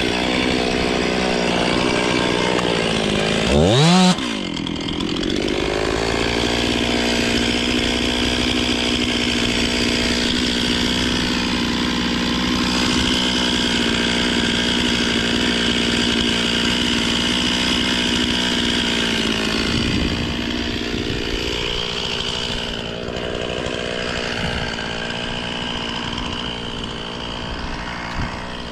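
Two-stroke chainsaw running at high revs with a steady high-pitched note. About four seconds in the revs drop and then climb steeply before settling back, and it runs a little quieter in the last third.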